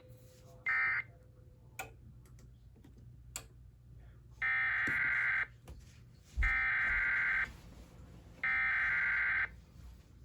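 Emergency Alert System SAME data tones: one short burst about a second in, then three longer bursts, each about a second long and about two seconds apart. This is the digital header sent three times at the start of an alert. A low steady hum and two faint clicks lie underneath.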